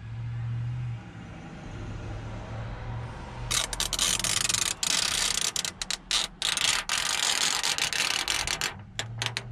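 Clear plastic backing film being peeled off a screen protector and handled: a dense crackling that starts about three and a half seconds in and goes on in bursts with short breaks. Before it there is a low steady hum.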